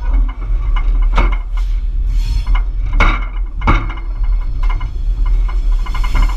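Diesel locomotive on the move: a steady low rumble with irregular metallic clanks and knocks from the wheels and running gear over the track.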